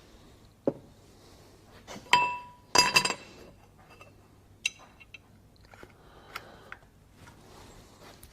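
Metal clinking as bolts and parts of a Wilwood brake disc and hub ring assembly knock together. Two loud knocks about two and three seconds in leave a short metallic ring, followed by lighter clicks.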